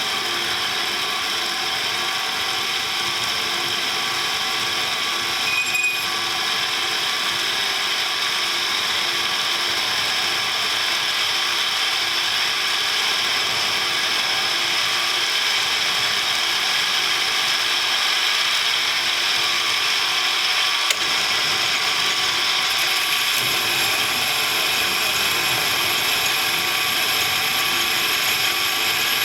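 A metalworking machine tool running steadily with a geared whine while boring out a worn bearing seat in a Ural motorcycle's front engine cover. A single click sounds about two-thirds of the way through.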